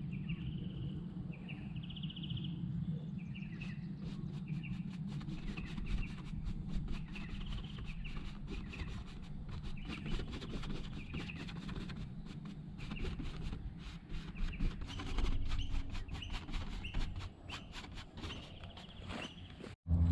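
Birds calling on and off over a low, steady outdoor rumble, with frequent light ticks from about four seconds in. The sound drops out abruptly just before the end.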